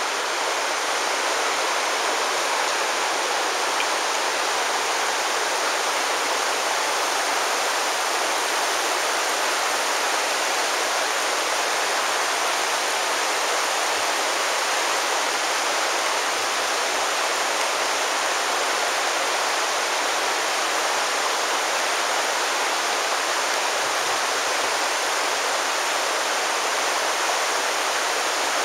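The Virgin River flowing, a steady, unbroken rush of water.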